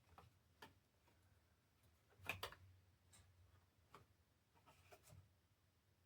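Faint, scattered clicks and taps of small parts being handled as an SSD is worked into a laptop's drive bay, with a louder double click about two seconds in.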